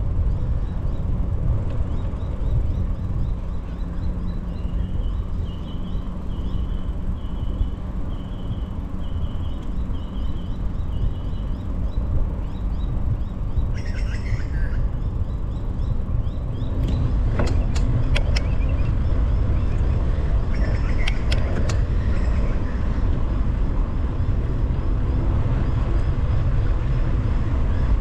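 Wind buffeting the microphone and the rumble of riding a bicycle along a road, steady throughout and a little louder from about two-thirds of the way in. A bird chirps repeatedly in the first half, and a few sharp clicks come later.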